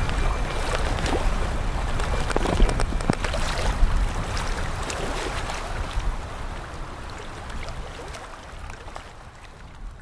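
Small sea waves lapping and splashing against black volcanic rocks along a calm shore, with wind rumbling on the microphone. The sound fades out gradually over the second half.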